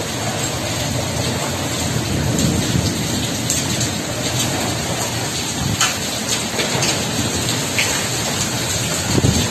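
Heavy rain pouring steadily, with a few sharp ticks of drops striking hard surfaces.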